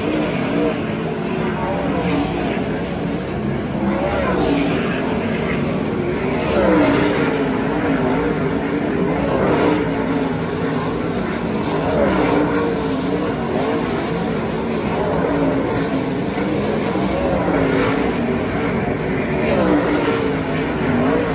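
Several winged 410 sprint cars running laps on a dirt oval, their methanol V8 engines overlapping and rising and falling in pitch over and over as they go on and off the throttle through the turns.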